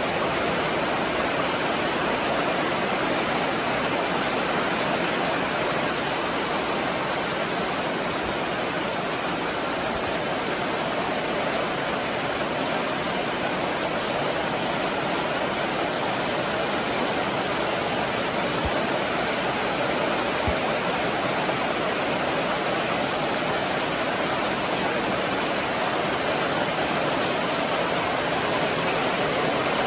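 Very heavy rain pouring down, a dense, steady hiss without let-up.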